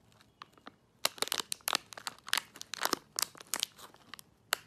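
Plastic snack wrapper crinkled in the hand, a dense run of sharp crackles starting about a second in and stopping just before the end.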